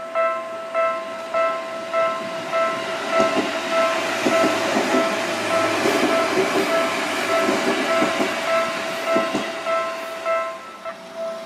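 Seibu 4000-series 'Fifty-two Seats of Bliss' electric train passing close by. Its running noise swells from about three seconds in and fades near the end, with a few sharp clacks from the wheels. A ringing warning bell, like a level-crossing alarm, sounds evenly a little under twice a second the whole time.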